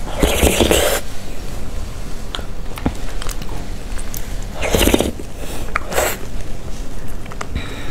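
Wet mouth sounds of eating soft cream cake from a spoon: slurps, the loudest in the first second, another about five seconds in and a smaller one soon after, with a few small clicks between.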